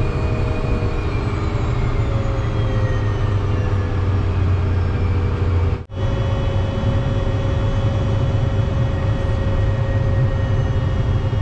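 Cessna Citation M2's twin Williams FJ44 turbofan engines running at taxi power, heard inside the cockpit: a steady low rumble under a high whine whose pitch falls over the first few seconds. The sound cuts out briefly about six seconds in.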